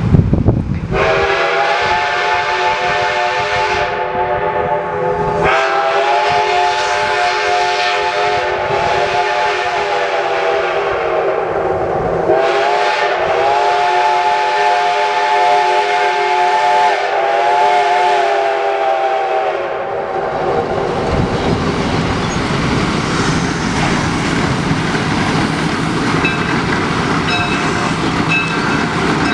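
Steam whistle of Shay geared steam locomotive No. 6 sounding a chord of several notes in four long blasts with short breaks over about twenty seconds. After that the locomotive and its train run past, a steady rumble and rattle on the rails.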